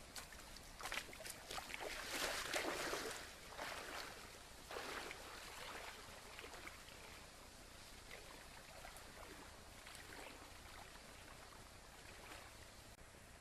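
Water splashing and sloshing as a person wades into a slow river, loudest over the first few seconds, then fainter intermittent swishes as he wades deeper.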